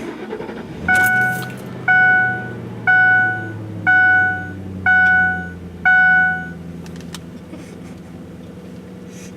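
Six loud electronic beeps, one about every second, over the steady low hum of a running engine.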